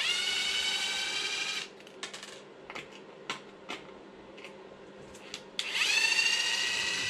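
Small cordless electric screwdriver running twice, about two seconds each time, backing out two screws from an RC car's chassis. Its whine rises as it spins up, and small clicks of the screws and driver come in the pause between.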